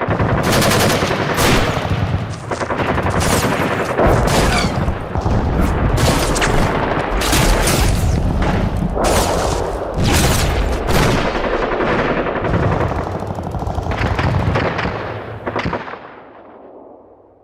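Battle sound effect: dense, sustained gunfire with rapid machine-gun bursts and overlapping shots, thinning out and fading away near the end.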